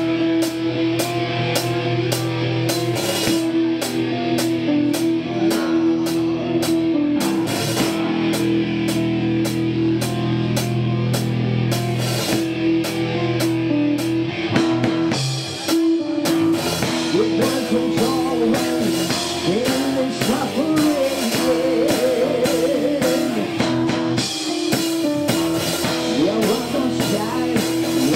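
Heavy metal band playing live: distorted electric guitars, bass and a drum kit pounding, with a brief drop about halfway through before the song carries on.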